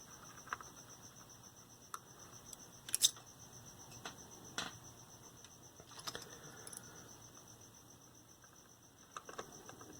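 Scattered light clicks and taps of a small plastic-cased transistor radio being put back together by hand, with its circuit board and tiny screws being worked into place; the loudest is a quick double click about three seconds in.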